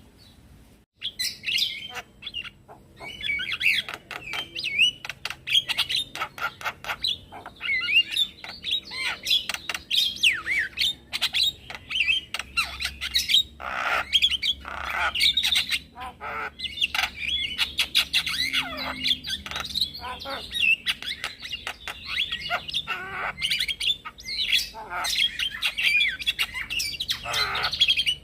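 Male Javan myna singing a long, varied run of chatter: quick whistled glides, harsh squawks and clicks, with short lulls in the first few seconds. This is lure song meant to make other mynas and starlings answer.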